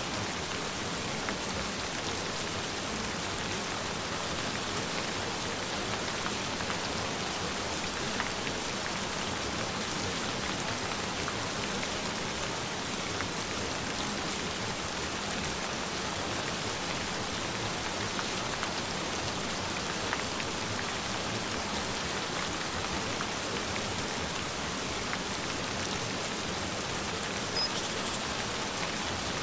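Gentle rain falling steadily: an even hiss with many small scattered drop taps.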